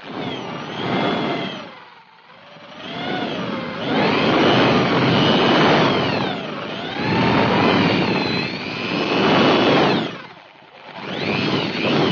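Electric drill with an 11 mm bit boring into the stripped oil drain bolt hole of a Suzuki motorcycle's engine crankcase, enlarging it so it can be re-tapped to M12x1.5. It runs in several bursts, its whine rising and falling in pitch as the trigger is worked.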